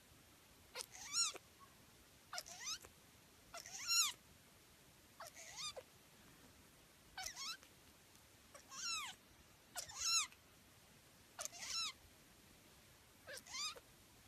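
Young Sphynx kitten mewing over and over: about nine short, high-pitched mews, roughly one every second and a half, each rising and then falling in pitch.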